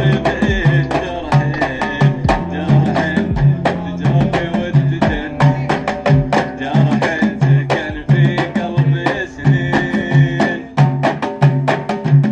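Emirati Ayala drumming on tar frame drums, wooden-framed and skinned with sheepskin, played by hand in a steady repeating beat with a deep stroke about every three-quarters of a second. Pitched melody sounds over the drums.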